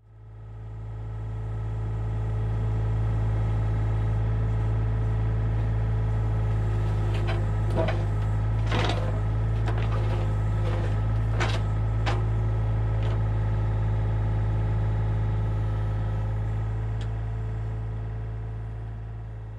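Hitachi 35U mini excavator's diesel engine running at a steady speed while it digs a shallow trench, with a few sharp clanks in the middle. The sound fades in at the start and fades out near the end.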